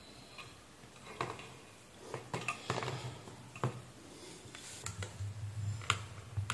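Scattered light clicks and knocks of hands handling crimp connectors, wire leads and a circuit board on a workbench, with a faint low hum in the second half.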